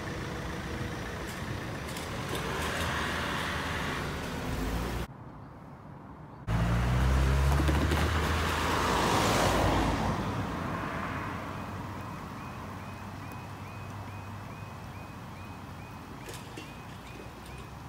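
Cars and vans driving over a level crossing, then after a cut a van passes close on wet tarmac, with engine and tyre noise rising and falling. From about 12 seconds in, the crossing's audible warning alarm starts up, a faint repeating yelp, as the red lights begin flashing before the barriers lower.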